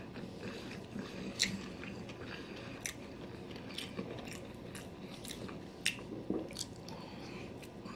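A person chewing sushi, with scattered small sharp clicks and smacks.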